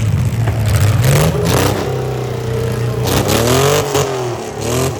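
Several six-cylinder demolition derby cars' engines running and revving, rising and falling in pitch, with a few sharp bangs.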